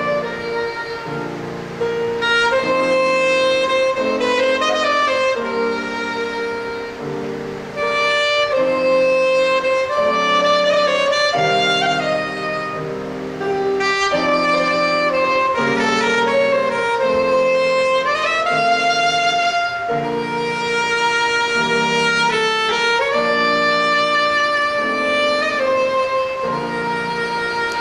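Soprano saxophone playing a melody with some slides between notes, over low chords that change about once a second.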